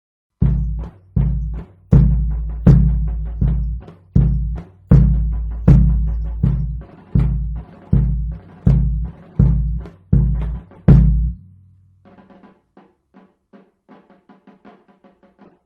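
Percussion ensemble playing: a run of about fifteen loud, deep drum strokes in an uneven rhythm, each ringing briefly. About twelve seconds in, a soft, quicker pattern of higher pitched notes takes over.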